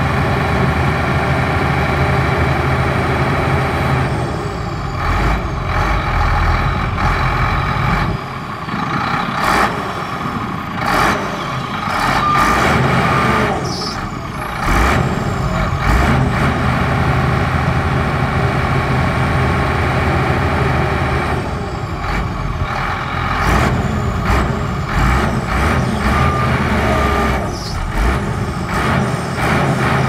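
Heavy diesel earthmoving machinery running steadily, with repeated sharp metal clanks and knocks through much of the stretch.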